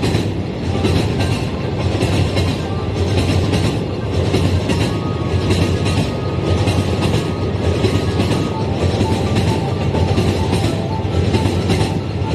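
Model freight train rolling past: the flatcar and container-wagon wheels rumble on the track with a steady run of evenly spaced clacks as they cross the rail joints.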